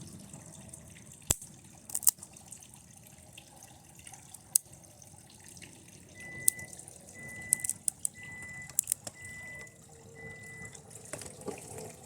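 Scattered sharp crackles and snaps from a TV circuit board burning after being shorted with high current from a lead-acid battery. About halfway through, five short high beeps come in an even row from some device.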